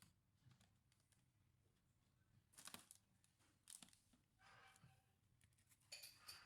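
Near silence with a few faint clicks and scrapes, spread across the few seconds.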